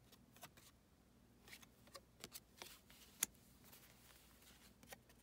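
Cardboard trading cards from a 1981 Donruss wax pack being handled and swapped in the hand: a string of light clicks and papery rustles as the cards slide and flick against each other, the sharpest click a little past the middle.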